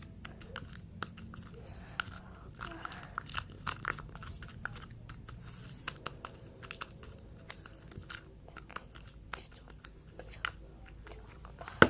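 Glue-and-laundry-gel slime being mixed and handled, giving irregular sticky clicks and squelches, with one louder click near the end.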